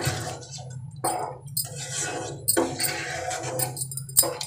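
A spatula stirring and scraping through watery potato curry in a kadhai, about five scraping strokes with light clinks against the pan.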